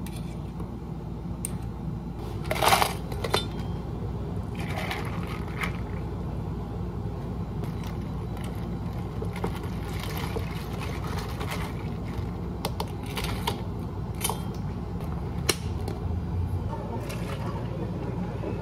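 Ice and a long bar spoon clinking and knocking in a plastic cup while a drink is made and stirred. There is a loud clatter about three seconds in, then scattered shorter clinks. A steady low hum runs underneath.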